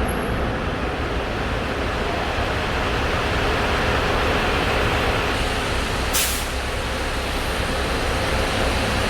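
Road vehicle travelling, its engine and road noise running steadily, with one short sharp hiss about six seconds in.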